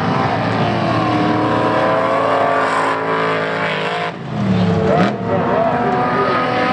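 Several dirt-track race car engines running hard together as the cars race through a corner, their pitches rising and falling as drivers lift and accelerate. Just past the middle the sound dips, then one engine revs up and back down, with a sharp click about five seconds in.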